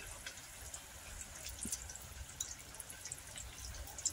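Potato kachoris deep-frying in hot oil in a steel kadhai: faint sizzling with scattered small crackling pops. This is the second fry that makes them crisp.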